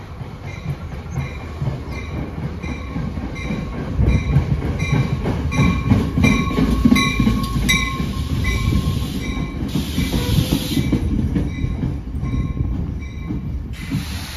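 NJ Transit local train of Comet coaches pulling into the station and rolling past close by: a rumble of wheels on rail that swells about four seconds in, with a faint squeal. A rhythmic clicking runs through it at about two a second, and short bursts of hiss come about ten seconds in and again near the end.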